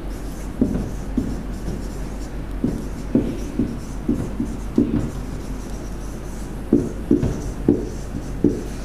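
Marker pen writing on a whiteboard: a run of short, irregular strokes as letters are drawn, over a low steady hum.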